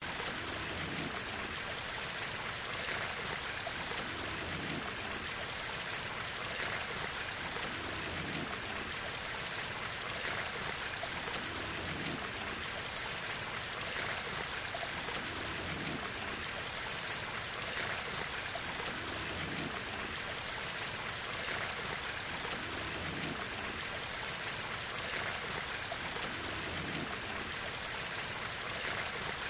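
Shallow stream water running over rock, a steady rushing hiss.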